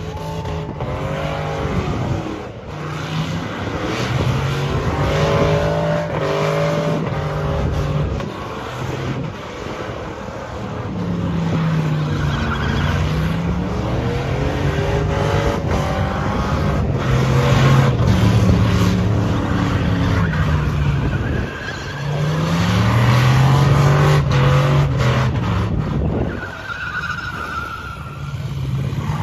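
Pickup truck doing a burnout, its engine revving up and falling back again and again over the screech of spinning tyres.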